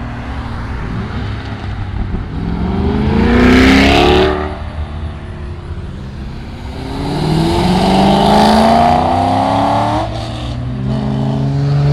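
A car accelerating hard as it drives past, its engine rising in pitch in two long pulls with a gear change between them; loudest about four seconds in.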